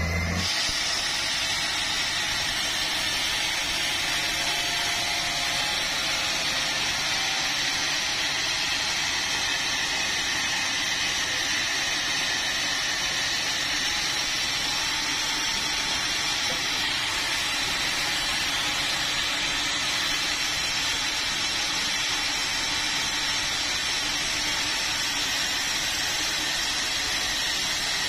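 Sawmill saw cutting through a red meranti log: a steady, even hiss.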